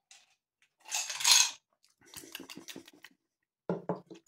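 Ice cubes clinking against a glass tumbler of brandy, a run of quick clinks and taps, after a short slurping sip about a second in.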